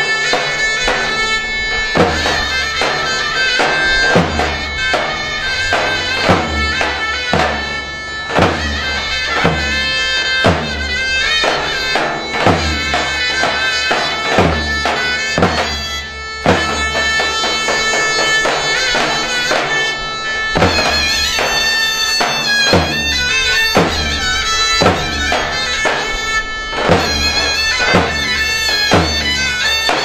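A zeybek tune on davul and zurna. The shrill reed shawm plays an ornamented melody over regular heavy strokes of the big bass drum, about one a second.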